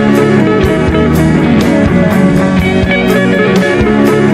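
Rock music with guitar and a steady drum beat, about two beats a second.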